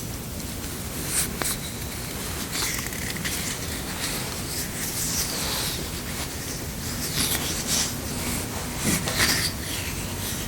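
A series of irregular rubbing strokes across a smooth object, a few of them sliding down in pitch like a squeak. The strongest stroke comes about nine seconds in.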